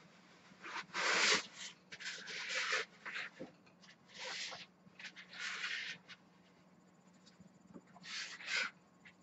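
A rubber mask being handled and worked onto a display stand: a series of short rubbing and rustling scuffs, about five of them, over a faint steady hum.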